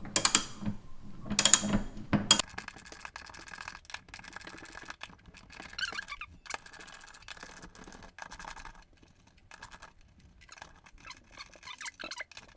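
A socket ratchet clicking rapidly as 10 mm nuts are unscrewed from a fridge door's hinge bracket, with a few knocks of the tool against metal in the first couple of seconds. The clicking fades about three quarters of the way through and returns briefly near the end.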